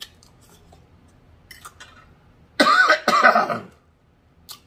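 A man coughs twice, loud and rough, about two and a half seconds in, while eating; before that, faint clicks of the fork and mouth as he takes a bite.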